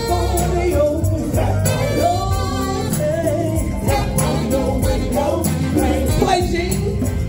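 Live band playing, with a lead singer's voice over bass and a steady drum beat.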